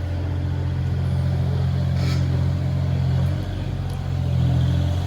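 Diesel engine of a compact Kubota machine running steadily under work. It dips in pitch about three and a half seconds in, then picks back up, with a couple of light knocks along the way.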